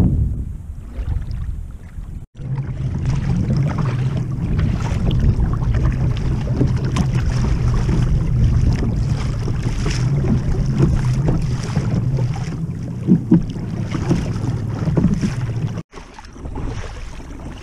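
Wind buffeting the microphone over choppy sea water splashing and slapping against a kayak's hull. A steady, loud noise that cuts out abruptly for a moment about two seconds in and again near the end.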